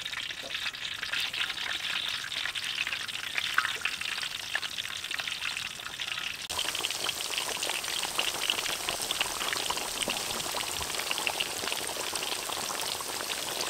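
Chicken pieces deep-frying in hot oil in a large wok: a dense, steady crackling sizzle that grows brighter about six and a half seconds in.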